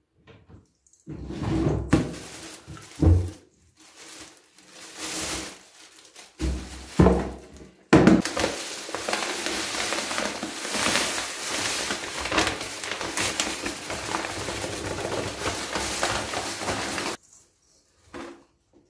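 Plastic shopping bags rustling, with a few thumps as bags are handled, then a long steady hiss of powdered laundry detergent pouring from its bag into a plastic storage box, which cuts off about two seconds before the end.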